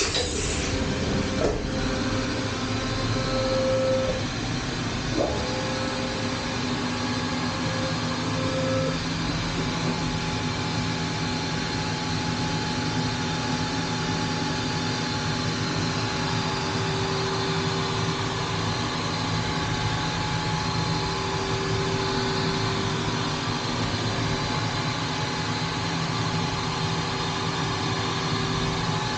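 Matsuura five-axis CNC vertical machining center running, heard from inside its enclosure on the trunnion table: a steady machine hum with whining tones from the axis drives. There is a click about a second and a half in and another about five seconds in, where a higher whine starts. The lower whine stops about nine seconds in.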